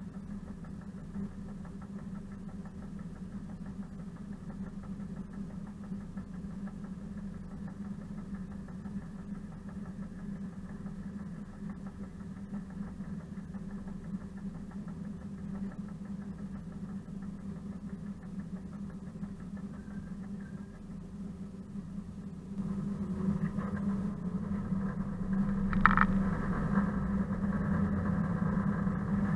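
ČKD class 742 diesel-electric shunting locomotive's six-cylinder diesel engine running steadily at low revs, then growing clearly louder about three-quarters of the way through. A brief metallic squeal follows a few seconds later.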